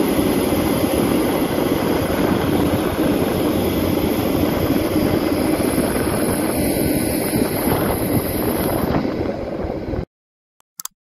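Caterpillar hydraulic excavator's diesel engine running steadily under load as the machine digs and lifts a bucket of soil. The noise cuts off suddenly about ten seconds in, followed by a few short clicks.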